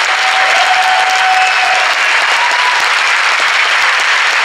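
Large theater audience applauding steadily, a dense wash of clapping.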